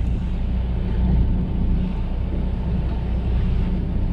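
Fishing boat's engine running steadily with a low hum, with wind noise on the microphone.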